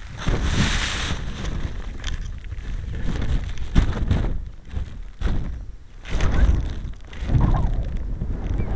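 Wind buffeting the microphone of a tiny camera mounted on a stunt kite in flight, with the rush surging and dropping several times as the kite swoops and turns.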